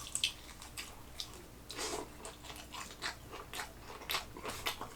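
Korean fried chicken drumstick in soy-sauce glaze being bitten and chewed close to the microphone: irregular crisp crunches of the fried coating, several a second.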